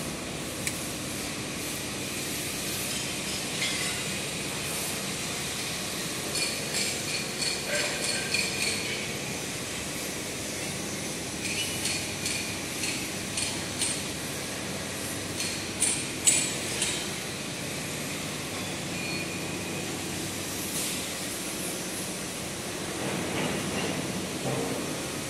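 Steady hum of workshop machinery with clusters of light metallic clinks and taps, the sharpest a little past the middle.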